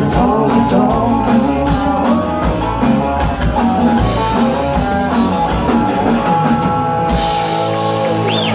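Live country-rock bar band playing an instrumental stretch of the song with drums and guitar, then stopping on a held, ringing final chord about seven seconds in.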